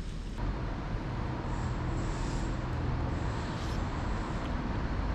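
Steady road noise: a low rumble under an even hiss, with no single event standing out.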